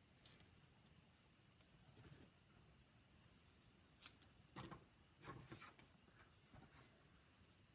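Faint rustling and crinkling of a Chalk Couture adhesive transfer sheet being peeled off a wooden rolling pin and handled. A few short scattered sounds over near-silent room tone, the loudest a cluster about four to six seconds in.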